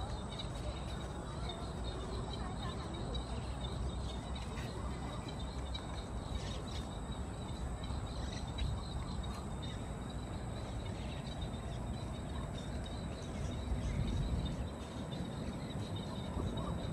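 Outdoor park ambience: a steady low rumble with faint, rapidly repeated high chirps held at one pitch. The rumble swells briefly about two-thirds of the way through.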